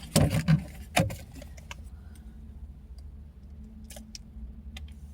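Light handling noises of a plastic bakery cookie container: a sharp click about a second in and a few faint clicks later, over a steady low hum.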